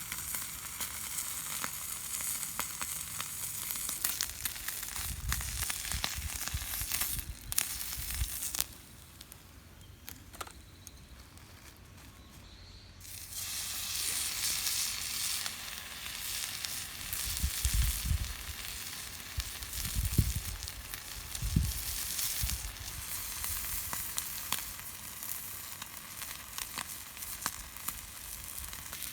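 Food sizzling on a small iron griddle over a wood stove, a steady frying hiss with sharp pops. It drops much quieter for a few seconds about a third of the way in, then picks up again, with a few low thuds.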